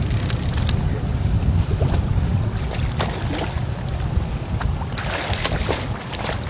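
Wind buffeting the microphone, a heavy steady rumble, with waves slapping against a small boat's hull. Water splashes as a landing net is worked through the surface, most plainly from about five seconds in.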